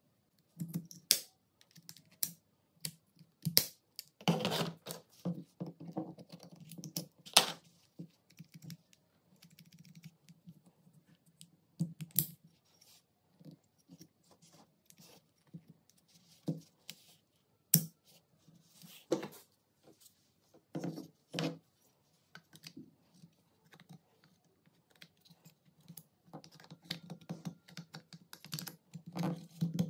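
Irregular clicks and clacks of small metal gun parts as an MP5 trigger group is handled and fitted into its housing. There are a few louder knocks among them and quiet gaps between.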